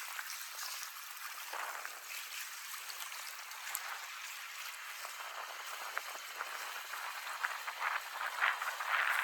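Soft, steady watery hiss with many small scattered ticks and crackles.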